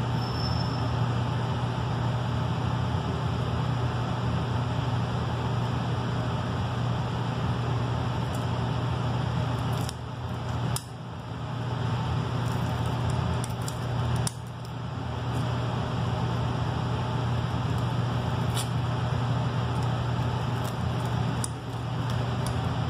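Steady low hum and rushing air of a laminar flow cabinet's blower, with a few faint crinkles and clicks as a Petri dish is wrapped with sealing film. The hum briefly drops twice, about ten and fourteen seconds in.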